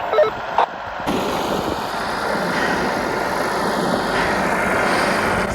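Tractor engine running steadily, becoming louder about a second in.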